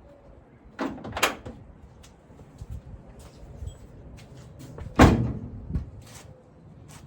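Toyota pickup truck door, just hung on quick-disconnect hinges, knocking as it is worked and shut. Two knocks come about a second in, the loudest clunk about five seconds in, and a few lighter knocks follow.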